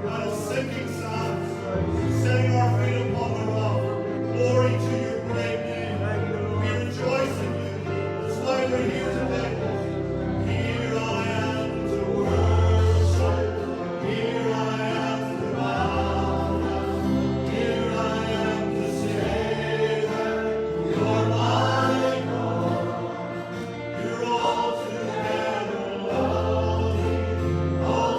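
A worship song sung by several voices together over instrumental accompaniment, with held bass notes that change every second or two.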